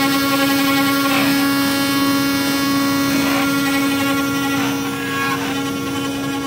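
Mini CNC router's spindle motor running with a steady whine as its engraving bit mills traces into a copper-clad printed circuit board.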